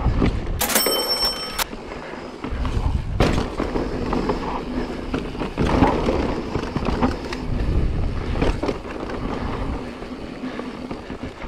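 Mountain bike riding over rocky dirt singletrack, heard from a chest-mounted action camera: tyres rolling and knocking over rock and loose dirt, the bike rattling, with wind rumbling on the microphone. It gets quieter toward the end.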